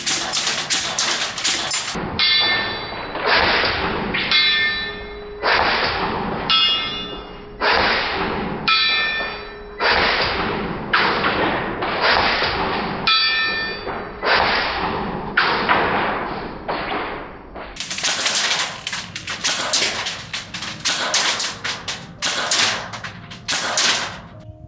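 Brushless-upgraded VFC Mk18 airsoft electric rifle firing a long string of short full-auto bursts, about one a second, with BBs clanging off steel target plates. The bursts in the middle sound duller, the last several brighter.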